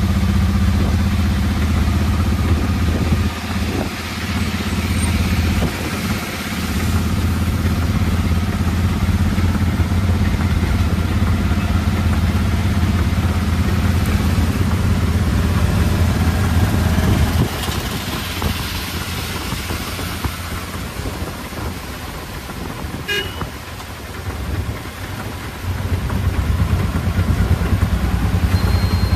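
Auto-rickshaw engine running steadily under way, heard from inside the open passenger cabin, over a constant hiss of heavy rain and wet road spray. The engine note drops off about two-thirds of the way through and comes back strongly near the end, with a short horn toot in the quieter stretch.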